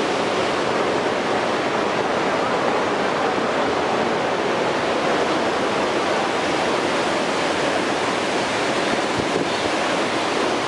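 Steady rush of muddy floodwater pouring through a dam spillway, a constant even noise with no breaks.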